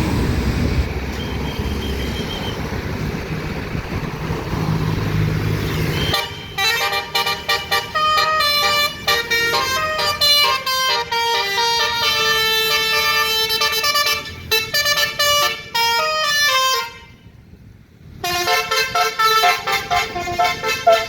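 A bus's basuri telolet musical horn plays a tune of steady notes stepping up and down in pitch. About six seconds of engine and traffic noise come before it, and the tune stops briefly about seventeen seconds in, then starts again.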